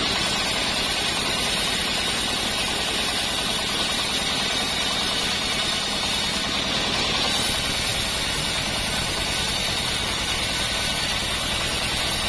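Engine-driven portable band sawmill running steadily while its blade cuts along a block of acacia timber, wood that is hard and heavy to saw.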